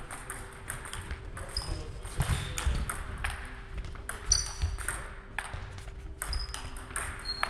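Table tennis rally: the ball clicks again and again off the table and the players' rubber-faced bats in an irregular rhythm.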